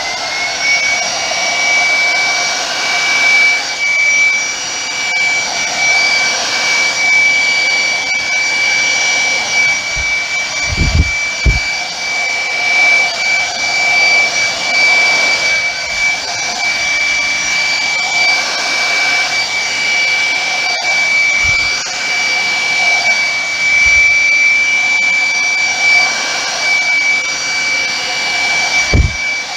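Handheld hairdryer blowing steadily, its motor whine rising as it spins up at the start and then holding one high pitch over the rush of air. A few brief low thumps about ten seconds in and near the end.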